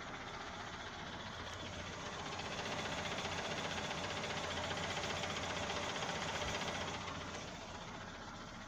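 Nissan Almera N16 engine idling with a knock from under the hood, a little louder for a few seconds in the middle. The owner traces the knock to the clutch disc, whose damper springs sit loose, not to the engine itself.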